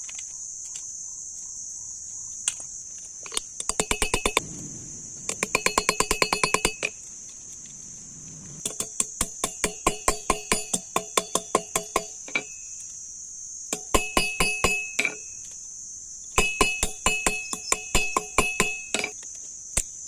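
Hammer striking steel on an anvil in quick runs of about four to five blows a second, each blow ringing metallically, with short pauses between the runs. A steady high hiss runs underneath.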